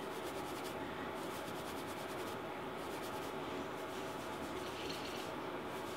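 Fluffy makeup brush sweeping bronzer powder across the cheek: soft, repeated rubbing strokes over a steady background hiss.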